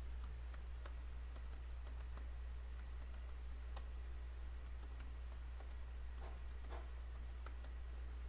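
Faint computer keyboard typing: scattered single keystrokes, coming more thickly near the end, over a steady low hum.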